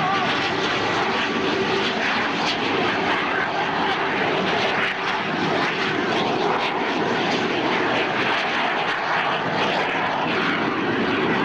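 Canadair CT-114 Tutor jets flying low after takeoff, their single J85 turbojet engines making a steady, loud rushing whine.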